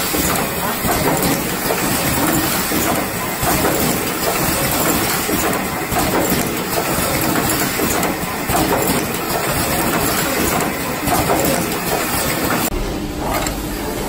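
Automatic power-cord plug crimping machine running: a dense, steady clatter of mechanism noise with frequent short knocks and hiss. Near the end it gives way to a quieter steady hum.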